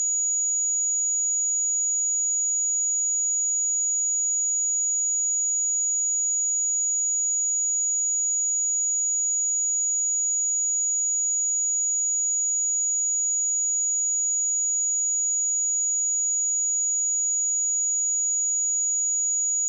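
A single steady, high-pitched sine-wave test tone at 6818 Hz, held at a constant level, used for testing speakers and headphones.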